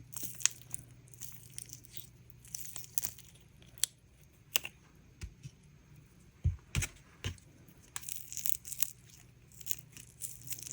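Cured resin succulent castings being peeled out of flexible silicone molds: soft rustling and peeling of the silicone, with scattered sharp clicks and taps as the hard resin pieces come free and are handled.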